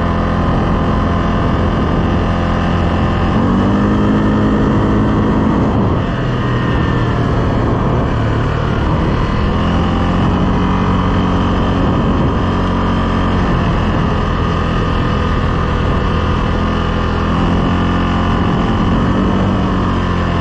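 CFMOTO CForce 600 ATV's single-cylinder engine running while riding, its pitch rising and falling with the throttle a few times.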